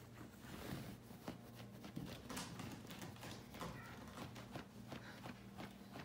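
Kittens scrambling on a carpeted cat tree: irregular soft thumps and claw scratches as they climb the posts and jump between platforms, over a faint steady low hum.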